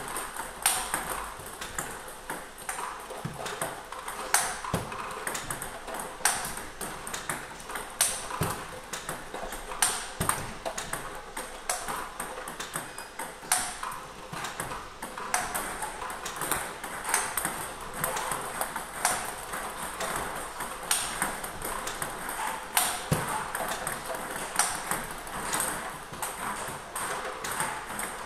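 Table tennis practice against backspin balls from a ball-feeding machine: a steady rhythm of sharp plastic ball clicks as balls bounce on the table and are struck with a racket faced with Nittaku Kyohyo Pro 3 Turbo Blue rubber, with a louder hit about every two seconds and lighter ticks between.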